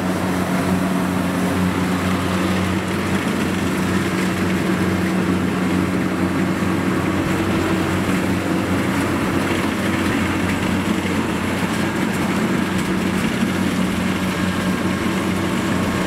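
Kubota DC70 Plus combine harvester running steadily under load while cutting and threshing rice: a loud, even engine drone with the machinery's churn.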